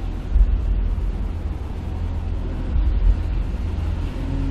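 Deep, steady low rumble in a horror film's soundtrack.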